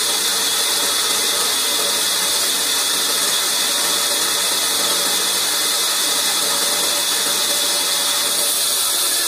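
Large belt-driven vertical band saw running without cutting: a constant machine whir under a strong, even hiss.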